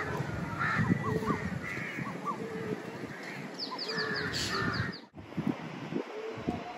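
Crows cawing, with other birds calling in quick, high chirps; the sound cuts off abruptly about five seconds in.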